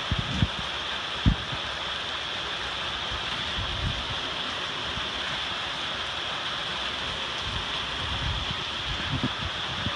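Heavy rain falling steadily in a thunderstorm, with a few short low thumps, the loudest about a second in.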